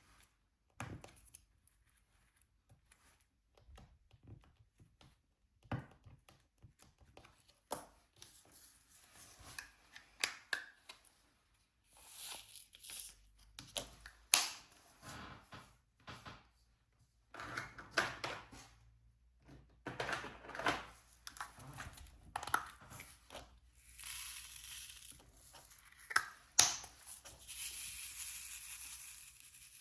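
Diamond painting handling sounds: scattered sharp clicks and taps of the drill pen and plastic gem tray, with crinkling and scraping rustles of the plastic. A longer hissing rustle runs near the end, and the loudest click comes about halfway through.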